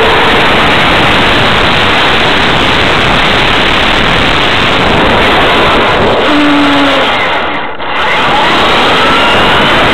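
Traxxas E-Maxx RC monster truck with a Novak HV/4.5 brushless motor system running at speed, heard from a camera on board: a dense, loud rush of motor, gears, tyres on asphalt and wind, with a faint whine rising and falling in pitch. The noise dips briefly about three-quarters of the way through, then picks up again.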